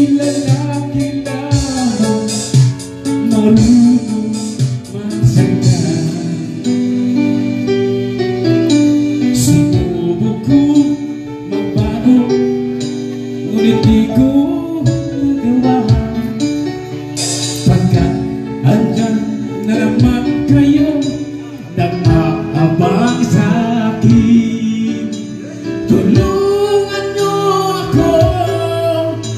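A man singing into a microphone through a PA, over backing music.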